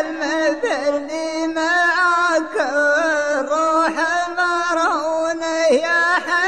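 Rababa, the single-string bowed Bedouin fiddle, playing a slow Middle Eastern melody of held, slightly wavering notes broken by quick dips in pitch.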